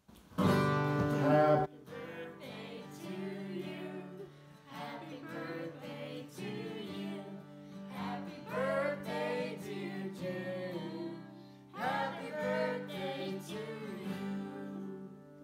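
Acoustic guitar strummed, opening with a loud chord about half a second in, accompanying a group of men, women and children singing together.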